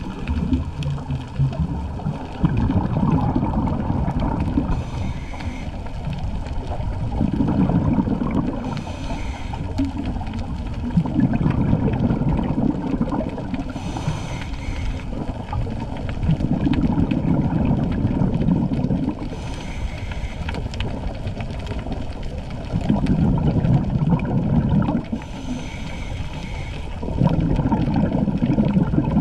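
Scuba diver breathing through a regulator underwater: a short hiss on each inhale, then a longer low bubbling of exhaled air, repeating about every five to six seconds.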